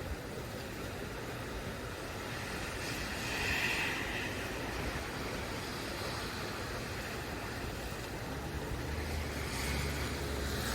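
Thunderstorm ambience: steady rain and wind noise that swells twice, about three seconds in and near the end, with a low rumble just before the end.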